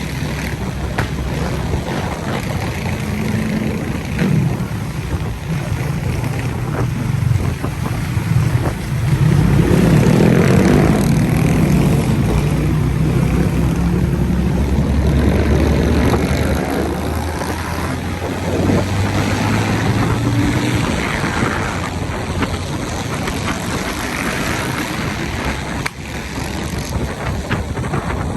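Dirt bike engine running and revving, rising in pitch and getting louder about a third of the way in, then holding a steady pitch before easing off.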